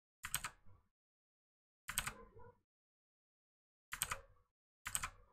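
Computer keyboard keys clicking in four short bursts of a few keystrokes each, with pauses of one to two seconds between them.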